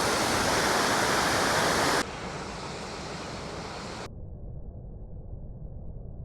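Düden river waterfall rushing as a steady roar of falling water. It is loud for the first two seconds, drops suddenly to a quieter level, and sounds muffled from about four seconds in.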